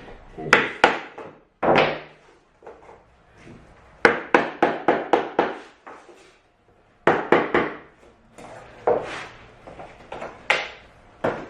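Repeated knocks of a tapping block being struck to drive click-lock cork floor boards tight together, in quick runs of several blows with short pauses between.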